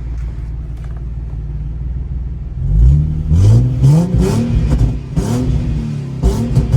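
Nissan 370Z's 3.7-litre VQ37VHR V6, running through resonated test pipes in place of the catalytic converters, idles steadily and then is blipped about five times in quick succession, with sharp pops from the flame tune between the revs.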